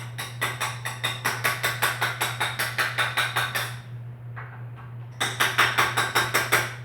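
Rapid, evenly spaced metallic clicking or tapping from hand-tool work on a motorized bicycle's parts, about seven clicks a second. It runs in two bursts with a pause of about a second and a half just before the middle, over a steady low hum.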